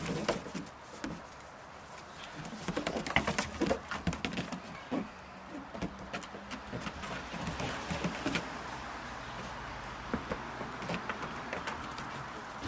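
Goat kids' hooves tapping and clattering on the shingled roof of a small wooden playhouse as they play, with a flurry of sharp taps about three seconds in and scattered taps after.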